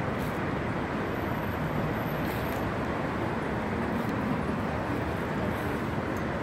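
Steady rumble of city traffic: an even, unbroken noise with no distinct events standing out.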